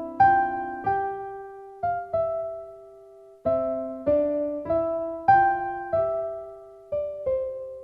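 Background music: a slow, gentle solo piano tune, its notes struck and left to ring and fade, with a short lull about three seconds in.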